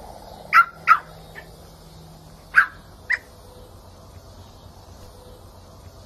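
French bulldog puppy giving short, high-pitched yaps, four in all in two quick pairs.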